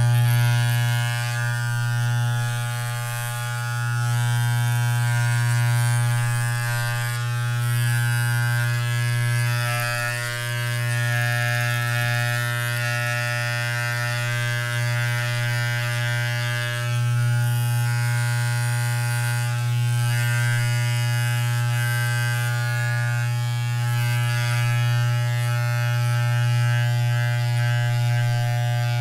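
Electric hair clippers running at a steady buzz, a strong low hum with a stack of higher overtones, swelling slightly in loudness now and then.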